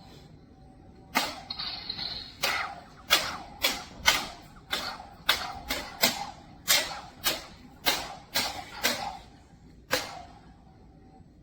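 Toy lightsaber blades striking each other: about fifteen sharp clacks in an uneven rhythm over some nine seconds, each with a short ring.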